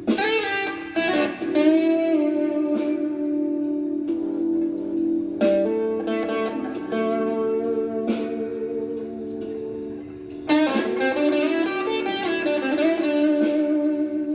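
Gibson Les Paul Traditional electric guitar playing blues. Bursts of picked notes with string bends come at the start and again about ten seconds in, with long held notes between them and a wavering vibrato near the end.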